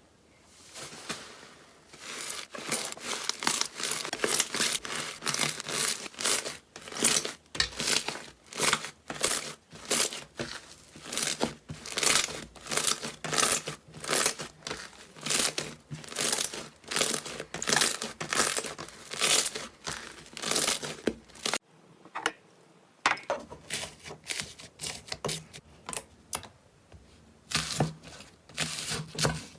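Slime being squeezed and pressed by hand, giving repeated crackling pops about twice a second. After a short break about three quarters of the way through, the crackles come more sparsely.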